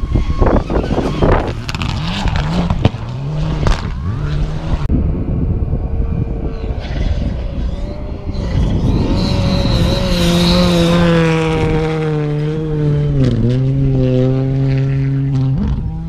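Rally cars at full throttle on a gravel stage, engines revving up and down through gear changes, with sharp cracks in the first few seconds. Later one engine holds high revs for several seconds, dips briefly on a shift about three-quarters of the way through, and climbs again before the sound cuts off.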